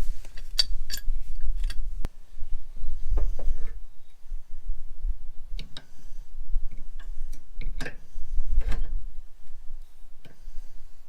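Scattered sharp metallic clicks and taps of hand tools and fittings being worked, over a low rumble.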